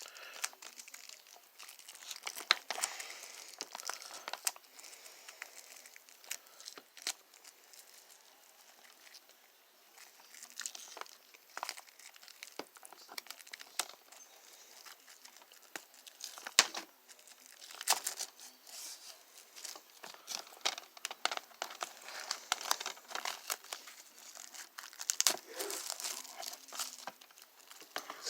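Plastic shrink-wrap being torn and peeled off a DVD case: continuous crinkling and crackling with many sharp clicks and snaps.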